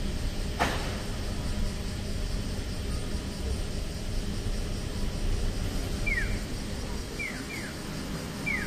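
Steady street-traffic rumble with one sharp click about half a second in. From about six seconds in, a Japanese pedestrian crossing signal sounds its electronic bird-call chirps, short falling pairs about once a second, marking that the walk light is on.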